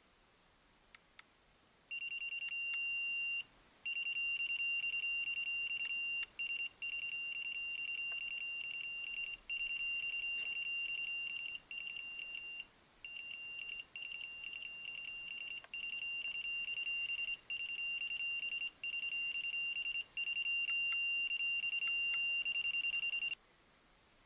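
SatLink WS-6933 satellite finder's signal buzzer sounding a high-pitched beep, pulsing rapidly and almost without pause, with a few short breaks, as the connected dish receives a satellite signal. Two faint clicks come just before it starts.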